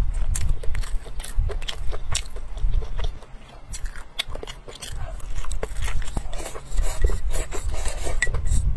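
A person chewing and biting food close to the microphone, with a run of short crunches and mouth clicks that eases off for a moment about three seconds in.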